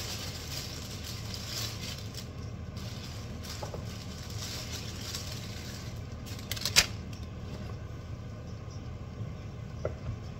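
Steady low kitchen hum, with a few faint clicks and one sharp knock about two-thirds of the way through.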